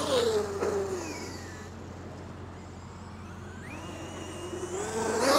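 Traxxas XRT RC monster truck's 1100kv brushless motor and drivetrain whining under hard acceleration, its pitch rising and falling as it wheelies away. The whine fades as the truck runs off, then grows louder again with a climbing pitch near the end.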